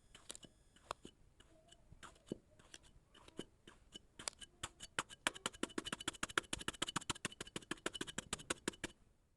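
Kinetic sand being cut, crunching: scattered crisp clicks, then a fast dense run of crackling from about four seconds in that stops suddenly near the end.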